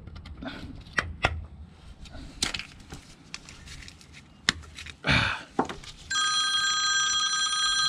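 A few scattered sharp metal taps and knocks on rusted air-brake hardware at an axle's S-cam. About six seconds in, a steady high ringing of several tones starts suddenly and holds, louder than the taps.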